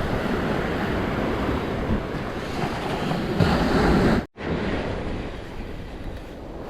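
Surf washing onto the beach with wind buffeting the microphone; a wave swells up about four seconds in, then the sound cuts out for an instant before the wash goes on a little quieter.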